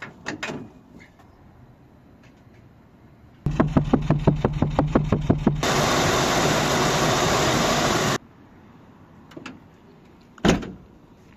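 Chevrolet Camaro's engine cranking on the starter, about six strokes a second for two seconds, then running with a loud steady noise for a couple of seconds before cutting off suddenly. A single sharp thump near the end.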